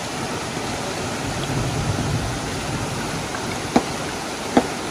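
Steady rushing of a mountain stream, with two sharp knocks near the end.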